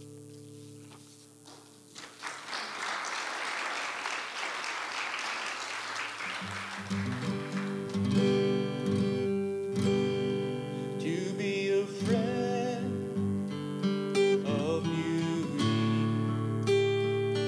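Acoustic guitar strummed in a slow worship song with a man singing over it at the microphone. The playing starts soft and grows fuller about six seconds in.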